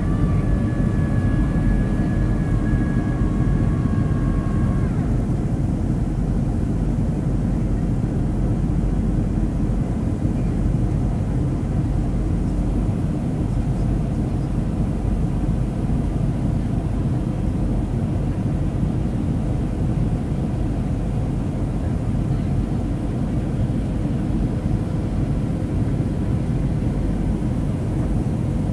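Steady cabin roar of a Boeing 737 in its climb after takeoff, heard at a window seat over the wing: engine and rushing-air noise as a deep, even rumble. A thin high whine sounds for the first five seconds or so, then stops.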